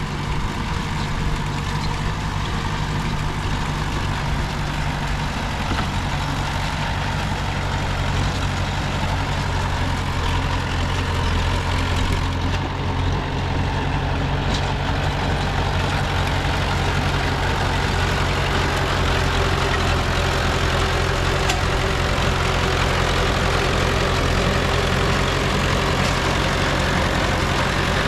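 Diesel engine of heavy earthmoving machinery running steadily, with a low even drone that grows a little louder about a third of the way in.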